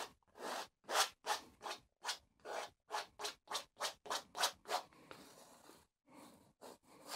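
Oil paint being scrubbed onto a stretched canvas in quick, scratchy back-and-forth strokes, about three a second. The strokes pause briefly about five seconds in, then start again.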